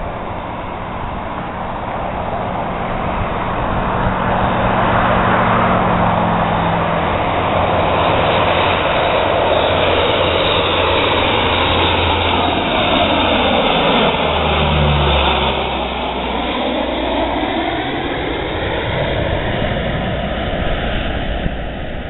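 Lockheed C-130 Hercules four-engine turboprop passing low overhead: the engine and propeller drone grows louder, stays loud for about ten seconds, then drops in pitch as the aircraft goes by and fades as it moves away.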